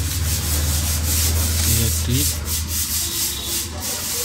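Continuous rubbing, rustling noise over a steady low hum.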